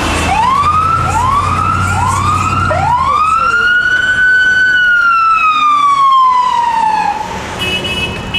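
Emergency vehicle siren giving four short rising whoops, then one long wail that rises and slowly falls away, over the low rumble of traffic.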